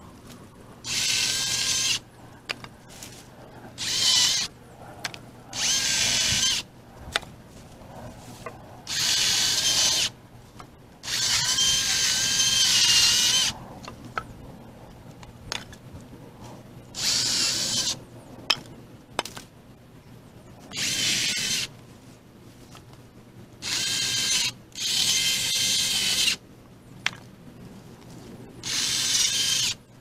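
Electric handheld power saw cutting brush in about ten short bursts, each a second or two of motor whine that starts and stops abruptly, with a few sharp snaps between the cuts.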